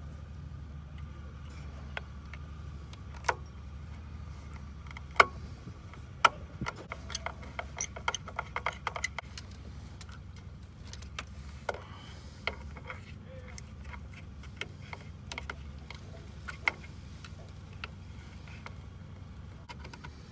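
Small metal clicks, taps and jingles of hand tools and wire-terminal hardware being worked on a pool pump's wiring. A quick run of light rattling clicks comes about seven to nine seconds in. A steady low hum sits under it all.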